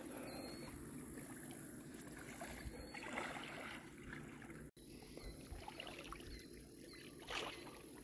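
Small river waves lapping faintly on a sandy shore.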